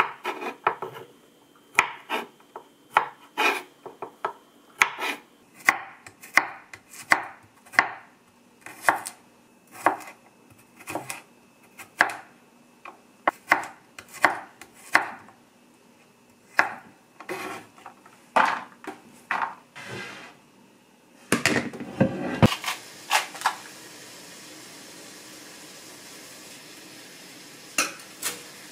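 Kitchen knife chopping on a cutting board in uneven strokes, one or two a second, stopping about twenty seconds in. A short clatter follows, then the steady hiss of food cooking in a pot.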